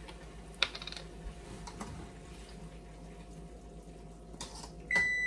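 A plastic bottle cap clicks as it is twisted open, then soy sauce is poured into a wok of chicken. Just before the end an oven timer starts sounding, one steady high beep that is the loudest sound here.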